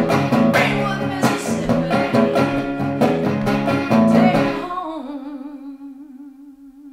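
A woman singing a blues song to her own strummed hollow-body electric guitar. About four and a half seconds in the strumming stops, and she holds a final note with vibrato that fades away as the song ends.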